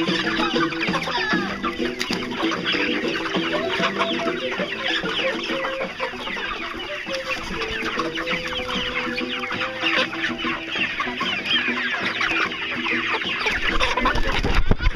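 A crowded flock of hens clucking and squawking all at once, the calls thick and continuous, with a low thump near the end.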